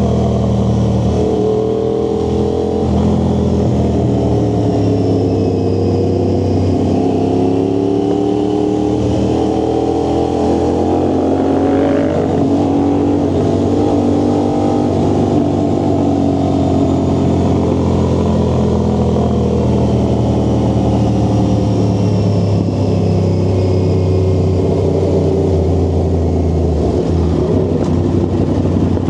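A vehicle's engine exhaust during a ride, running steadily at cruising revs, its pitch drifting gently up and down as the throttle changes.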